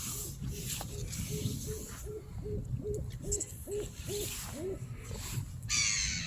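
A bird gives a fast, even series of about fourteen low hooting notes, about three a second, growing louder, then a harsh rasping call near the end.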